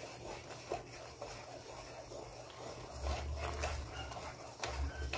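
Water being poured into a stainless steel bowl of flour and sugar while a wire whisk stirs it into the dry mix. In the last couple of seconds the whisk scrapes and knocks against the bowl a few times.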